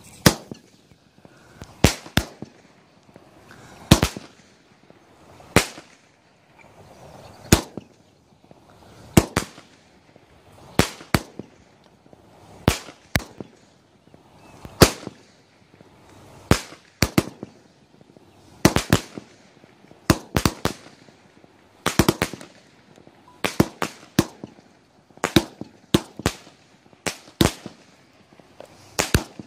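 Parachute Invasion consumer firework cake firing its shots, a sharp crack every one and a half to two seconds, many of them in quick pairs.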